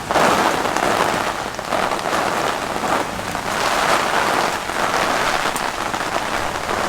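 Heavy rain from a summer thunderstorm pouring down on hard surfaces, a dense steady hiss of drops that swells and eases every second or so.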